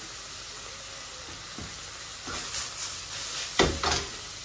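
Chopped onions and black mushrooms sizzling in a stainless steel wok over a gas flame. From about two seconds in, the wok is shaken and tossed on the burner, with scraping and a sharp knock near the end, the loudest sound.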